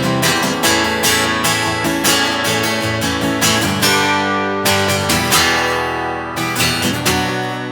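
Taylor GS5 cedar-top, mahogany-body acoustic guitar strummed with the fingers, no pick, in a steady rhythm of strums; near the end a final chord is left to ring out and fade.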